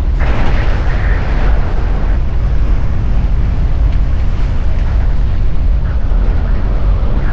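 Strong wind buffeting the camera's microphone on a small sailing yacht: a loud, steady, low rumble. A louder rushing hiss rises from about a quarter second in to about two seconds, and a weaker one comes near the end.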